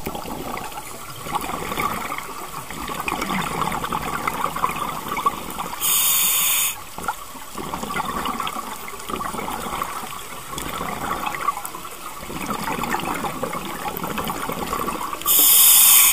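Scuba diver's breathing heard underwater: a steady crackle and bubbling of exhaled air rising, broken twice, about nine seconds apart, by a loud hiss just under a second long from the regulator as air is drawn in.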